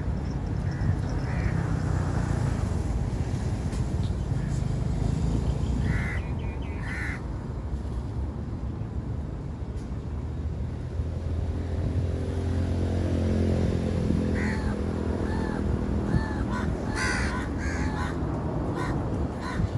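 Crows cawing in short harsh calls: a pair about six seconds in, then a run of caws through the second half, over a steady low rumble.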